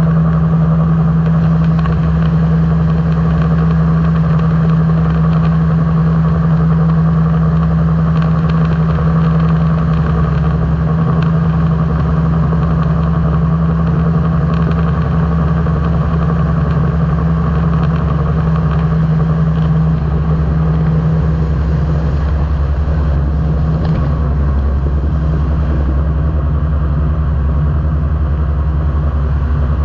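Engine and pusher propeller of a weight-shift microlight trike in flight, a loud, steady drone.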